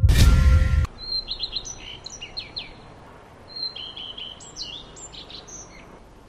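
Songbirds chirping, many short chirps and whistled notes, some falling in pitch, in two bunches over a faint hiss. It opens with a loud hit from the logo sting that cuts off within the first second.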